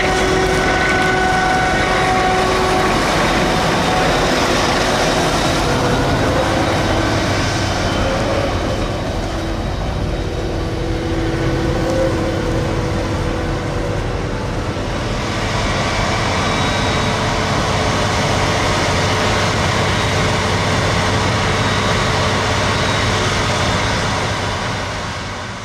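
Heavy maize-harvest machinery running steadily: a dense engine and machinery noise with a few held whining tones, fading out near the end.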